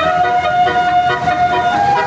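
Bus telolet horn, a multi-tone musical horn, playing a tune: several tones sound together, held steady, then step up in pitch near the end.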